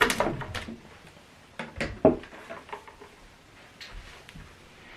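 A few short knocks and clicks of handling as a power cable is plugged into a soundbar system's wireless subwoofer, the loudest knock about two seconds in.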